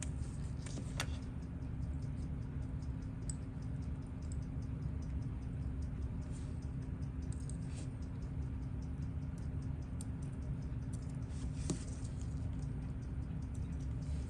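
Small metal clicks of tweezers and watchmaker's tools on a Seiko 7548 quartz movement, the sharpest about a second in and near the end, over a steady low hum and a fast, even ticking.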